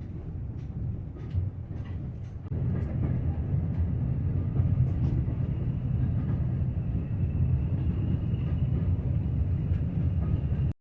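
Heritage railway train running, a steady low rumble that gets louder about two and a half seconds in, with a faint thin whine above it.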